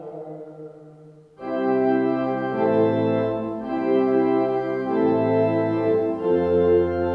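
Church organ comes in about a second and a half in, playing full sustained chords that move from one to the next. Before it, a chanted voice trails off into a brief hush.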